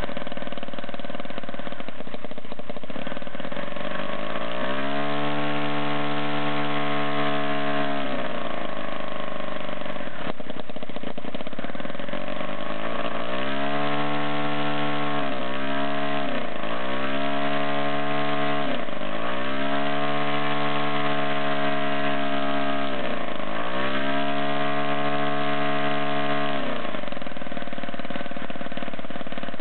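Home-built 15cc NE15S model aircraft engine running on a test stand with its propeller turning. Its speed rises and falls several times as the throttle lever is worked, with a pitched running note that dips and recovers.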